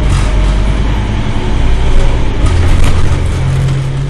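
Diesel engine of a Scania double-decker bus running with a low, steady drone, which shifts in pitch about two and a half seconds in.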